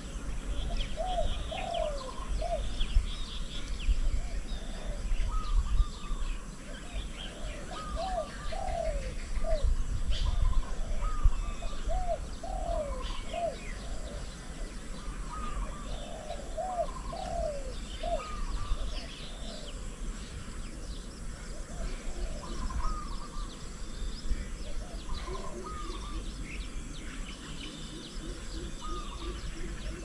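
Doves cooing in repeated short phrases of a few falling notes, with smaller birds chirping higher up and a steady low rumble underneath.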